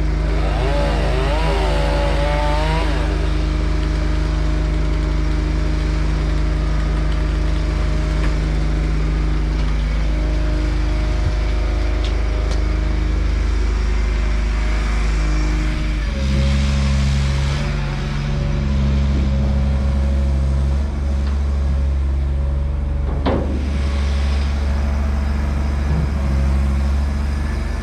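An engine running steadily, its note changing to a deeper, louder hum about sixteen seconds in.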